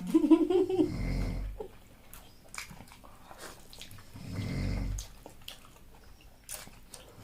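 Deep, slow snoring, one snore about every three and a half seconds, with small clicks like chewing between the snores. A brief wavering vocal sound comes at the very start.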